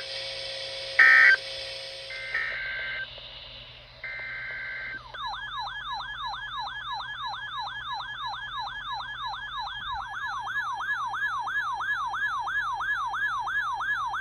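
Emergency alert tones. First come a few short electronic data squawks. Then, about five seconds in, an electronic siren starts: a tone that sweeps up again and again, about three to four times a second, for roughly ten seconds. It is the alert sounding before the next weather warning.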